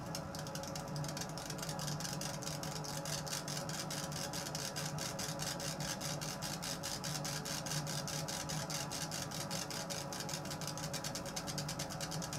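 DIY CO2 laser cutter's stepper-driven gantry running a raster engraving on bamboo plywood: the laser head moves back and forth in quick, even strokes, giving a rapid regular pulse several times a second over a steady hum from the machine's fume extractor.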